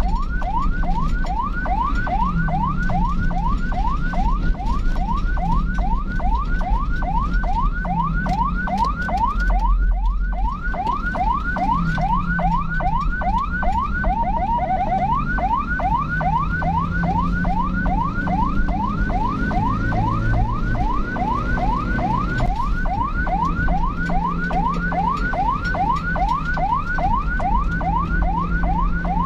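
Ambulance siren in yelp mode: quick rising sweeps, about three or four a second, repeating without a break over a low engine and road rumble.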